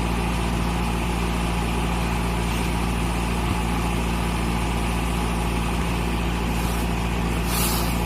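Daedong DSC-62G combine harvester running steadily, an unbroken engine drone with a low hum. A brief hiss comes near the end.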